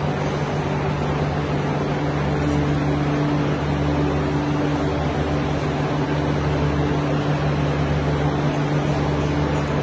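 Steady machinery hum from the electric motors driving the rake arms that stir a bed of tapioca pearls, over an even rushing noise. A second, higher hum tone joins about two and a half seconds in.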